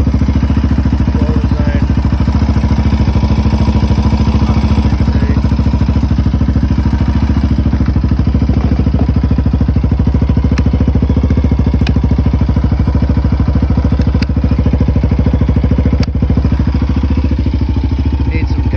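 Yamaha Raptor 700R's freshly rebuilt single-cylinder four-stroke engine idling steadily during a cold start, with an even, unchanging firing rhythm.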